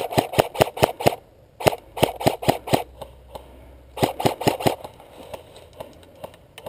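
Airsoft rifle firing strings of rapid shots, about six a second, in three runs: the first stops about a second in, the next runs for about a second, and a short one comes about four seconds in, with fainter scattered shots after.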